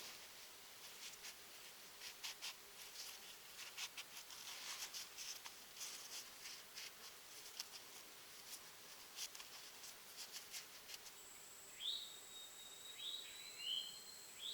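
Faint, scratchy rustling of a nylon tarp and cord being handled as a knot is worked, in short scattered bursts. Near the end a bird gives a few short whistled notes that rise and level off, over a thin, high steady tone.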